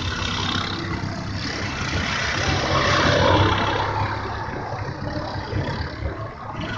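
Racing kart engines running on the circuit, the sound swelling to a peak about three seconds in and then fading as the karts go past.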